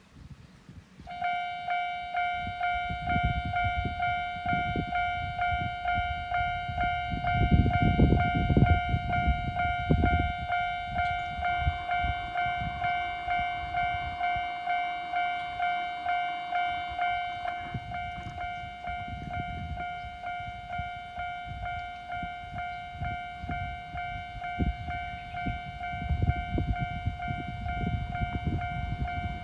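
Japanese railway level-crossing alarm starting about a second in, ringing with a rapid repeating electronic clang. A low train rumble with wheel clatter swells beneath it about a quarter of the way in and again near the end.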